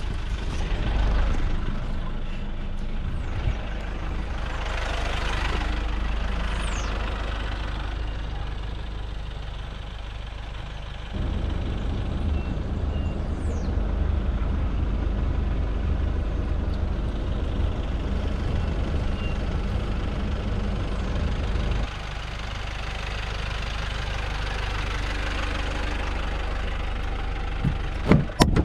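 Pickup truck engine idling, a steady low rumble that grows stronger for about ten seconds in the middle. A few sharp clicks near the end.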